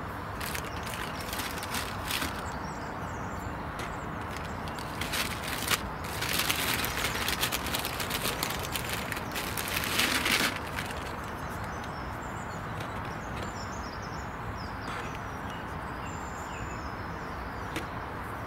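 Seed potatoes being handled and set into a cardboard egg tray, with light clicks and knocks. From about six to ten seconds in there is a louder rustling as a hand rummages in the seed potato bag. Faint bird calls sound in the background.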